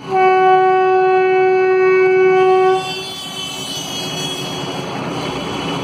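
Train horn sounding one long, steady blast of nearly three seconds that stops abruptly, followed by the steady rumble of the train and street traffic.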